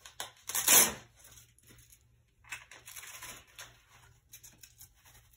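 A hinged knee brace's top hook-and-loop strap being pulled through its plastic D-ring and pressed down snug. A loud crackly rasp comes about half a second in, then softer crackling and rustling around three seconds in.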